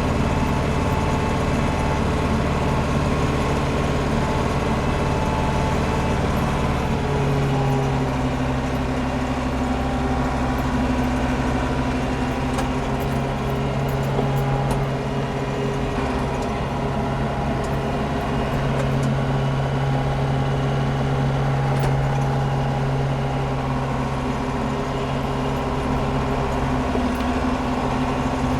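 Landini Blizzard 65 tractor engine running steadily under load, driving a Taarup flail mower through the PTO, heard from inside the cab. The engine note shifts about seven seconds in and again near the end.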